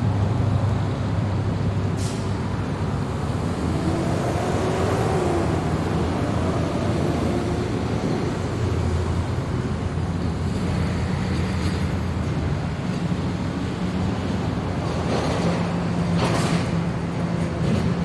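City road traffic: a steady low rumble of engines and tyre noise, with a brief sharp sound about two seconds in and two louder vehicles passing close near the end.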